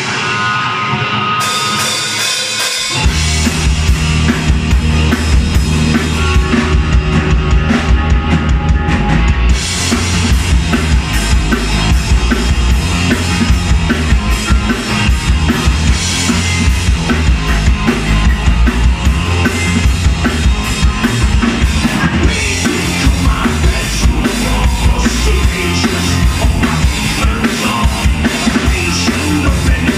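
Live rock trio of electric guitar, bass guitar and drum kit playing loud. The guitar plays alone at first, then drums and bass come in about three seconds in and the full band plays on.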